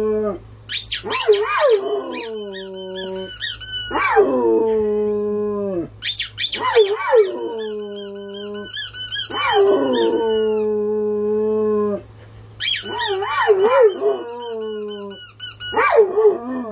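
A squeaky toy squeaked in quick bursts, each time answered by a dog howling in long calls that fall in pitch; about five rounds back and forth.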